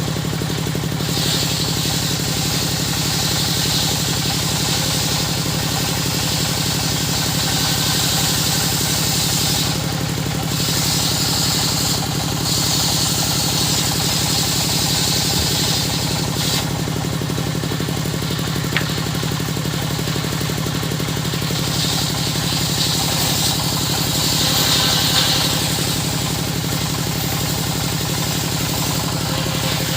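Circular saw machine running steadily with a constant low hum, the blade cutting wood in several stretches of higher-pitched hiss. One long cut runs through the first half, and the loudest comes about three-quarters of the way through.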